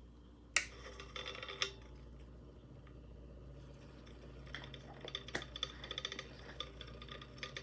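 Light clinks and taps against glass as a teaspoon of calcium sulfate is added to water in a glass Erlenmeyer flask and mixed in. One sharp click comes about half a second in, then a brief clatter. A run of small irregular ticks follows later.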